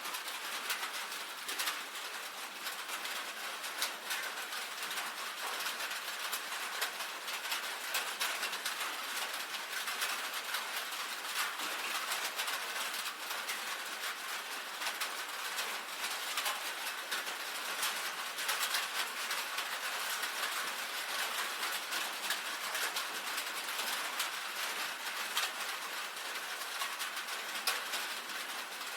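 Rain falling on a tin roof: a steady hiss of rainfall with many sharp individual drop taps scattered through it.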